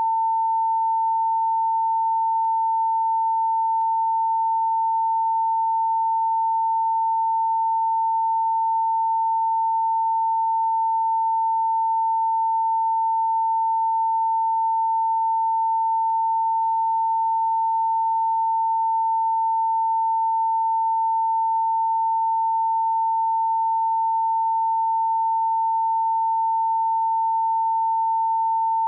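Emergency alert attention tone: a single steady, mid-pitched electronic tone held without a break or change.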